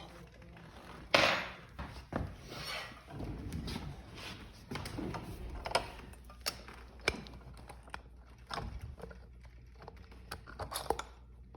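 Scattered metal clicks, knocks and scrapes of a wheel axle shaft and washer being handled and fitted through a scooter's front wheel hub, with the loudest scrape about a second in.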